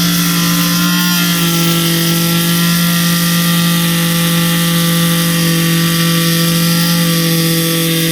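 Corded Warrior 2 Amp oscillating multi-tool running with a loud, steady buzz, its blade held against a metal screw to cut it. The pitch steps up slightly about a second in.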